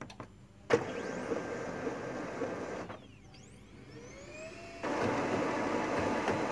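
Xerox Phaser 3330 laser printer warming up and starting a print job. A click, then its mechanism starts running suddenly a little under a second in. About three seconds in it drops back, with whines sweeping up and down in pitch, and near five seconds it starts again louder and steady as printing begins.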